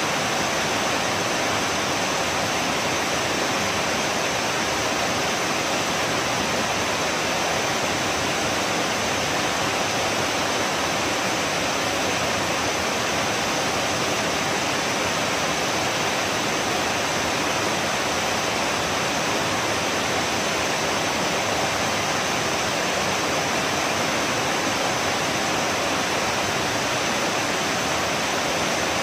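Waterfall pouring into a pool: a steady, unbroken rush of falling water.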